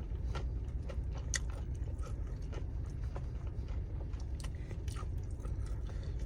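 Close-miked eating sounds of someone chewing fried chicken: irregular wet clicks and smacks of the mouth, over a steady low rumble.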